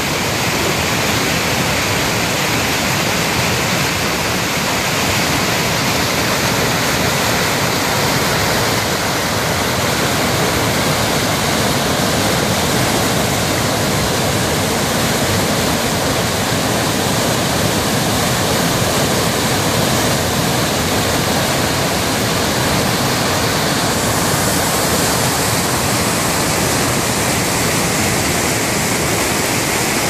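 River rapids and waterfall: water pouring over rock slabs and crashing into white water, a loud steady rush. The rush turns brighter and hissier about three quarters of the way through.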